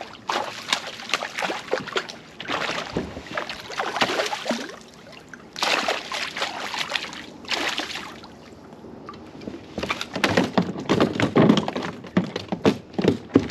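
A hooked northern pike thrashing and splashing at the surface beside a kayak as it is brought in and grabbed by hand. The splashing comes in repeated bursts, heaviest in the last few seconds, with a few knocks against the hull.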